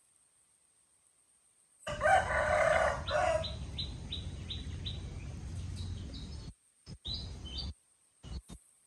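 A rooster crows once, about two seconds in. A run of short, high chirps follows, about three or four a second, with one more chirp near the end.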